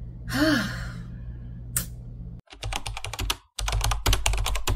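A computer keyboard typing rapidly, with fast key clicks in two runs and a short break between them, starting about halfway in; it is the typing sound effect laid under text typing onto a title card. Earlier there is a short vocal sound with a pitch that rises and falls, and a single click.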